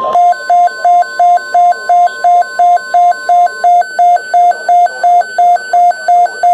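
Electronic emergency alert tone: a loud beep repeating about three times a second, alternating with a quieter higher tone, like a two-tone warble alarm. A steady single tone sounds underneath and stops about halfway through.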